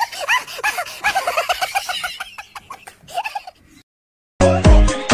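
Rapid run of clucking like a hen cackling, each note a short rise and fall, about five or six a second; it stops about three and a half seconds in. After a brief silence, music with a strong, regular beat starts near the end.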